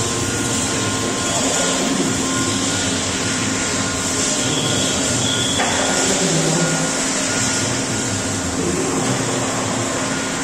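Steady running noise of industrial machinery, a constant hum with a few faint steady tones over it. The sound changes abruptly about five and a half seconds in.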